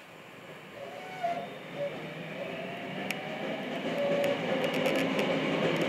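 Tokyo Metro Namboku Line subway train pulling away and gathering speed, heard from inside the rear car. Faint motor tones drift in pitch while the running rumble grows steadily louder.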